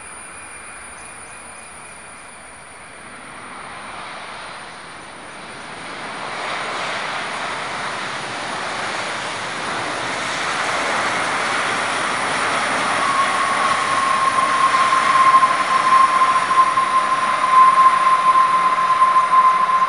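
An Emirates Boeing 777's twin jet engines, a roar that grows steadily louder as thrust builds on the runway. About two-thirds of the way in, a steady high fan whine joins it.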